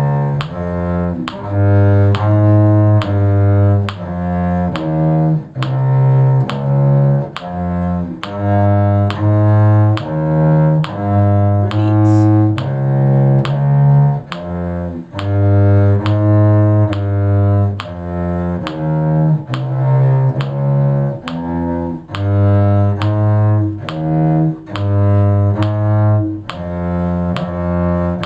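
Cello playing a slow bass line, one sustained bowed note after another, with a steady tick keeping time, typical of a metronome.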